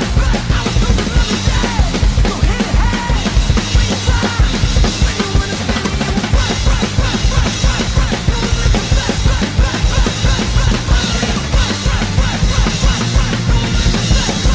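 Hardcore punk track with an acoustic drum kit played along over it: steady, dense kick-drum and snare hits driving the beat.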